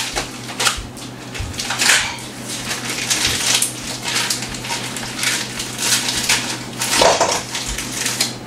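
Irregular clattering and crinkling at a kitchen sink as a plastic package of corn on the cob is pulled open and handled.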